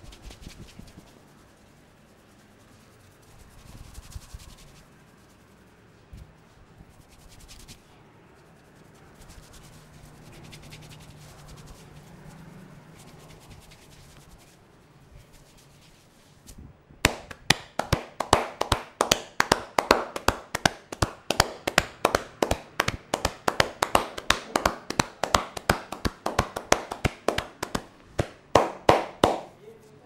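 Hands rubbing and working through hair on a man's scalp in a head massage, soft and quiet. About halfway through, rapid rhythmic slaps of the barber's hands on the head begin, several a second, loud and sharp, and they stop shortly before the end.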